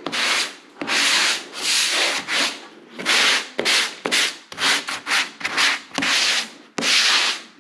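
Hand sanding block rubbing over dried drywall joint compound and corner bead, about a dozen short back-and-forth strokes at an uneven pace: a light sanding of the first coat of mud before the second.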